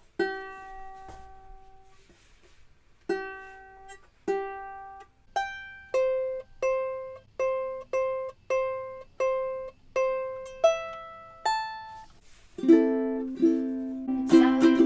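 Kala KA-TEM exotic mahogany tenor ukulele with new Aquila strings being played: a few single picked notes, then a steady run of evenly paced notes, then strummed chords near the end. The new strings have already gone slightly out of tune.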